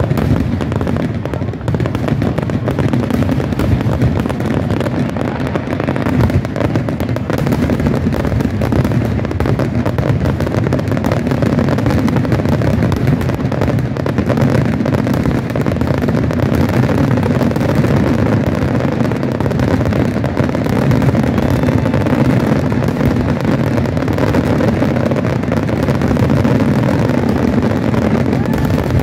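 Fireworks going off in a dense, unbroken barrage, many bursts overlapping into a steady rumble with crackle on top.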